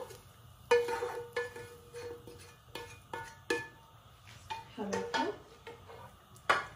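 A spatula scraping and knocking against a pan as it is tipped and emptied into a frying pan: a string of sharp clinks and knocks, several ringing briefly.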